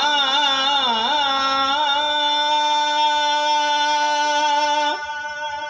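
Kirtan singer holding a long sung 'aa' vowel: the pitch wavers in quick ornaments for about two seconds, then settles on one steady note, which breaks off about five seconds in.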